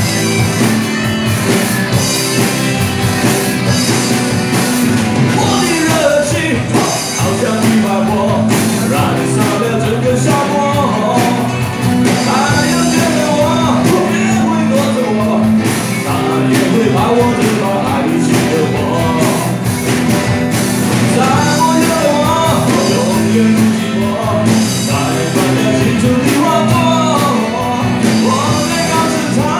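Live rock band playing a song with a lead singer, the vocal coming in about six seconds in over the band.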